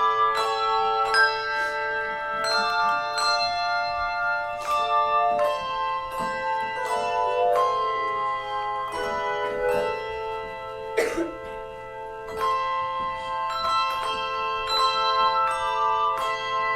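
A handbell choir playing a piece: bells struck in quick succession and in chords, each note ringing on and overlapping the next.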